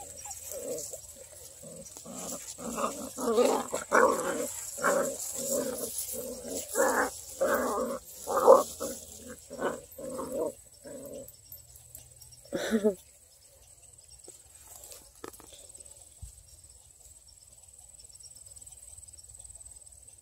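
A dog barking and growling in short repeated calls, about two a second, for some twelve seconds, then stopping after one last bark. Faint insect chirring continues underneath.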